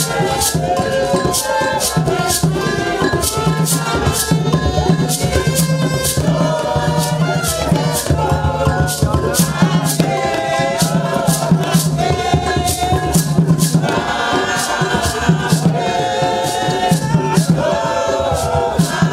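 A group of voices singing a lively song together, with a shaker rattle marking a steady beat throughout.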